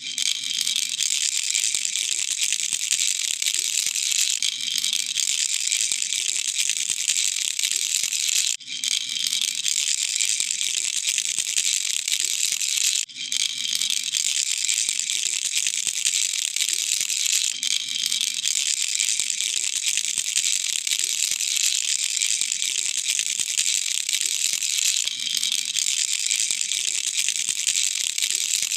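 A baby rattle shaken without stopping, its loose beads making a dense, continuous rattle. It breaks off briefly twice, about eight and a half and thirteen seconds in.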